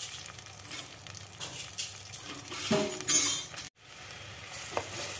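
A spatula scraping and clinking against a pot as spice paste is stirred and sautéed, with the paste sizzling. There are a few scrapes and knocks, the loudest about three seconds in, then a short sudden dropout, then steady sizzling.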